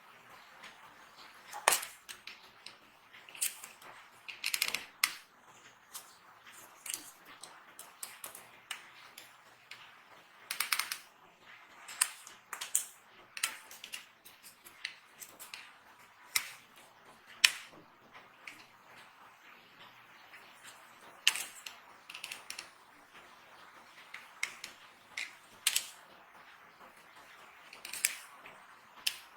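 Dry soap being cut and crushed by hand, giving crisp cracks and crunches at irregular intervals, roughly one a second, some in quick clusters. The sharpest cracks come about two seconds in, near the middle and about two thirds of the way through.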